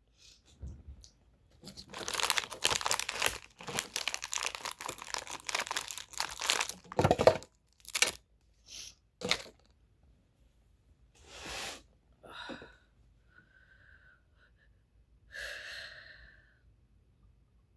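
Packaging crinkling and tearing, a dense run of rustling for about five seconds, then a few short, lighter rustles.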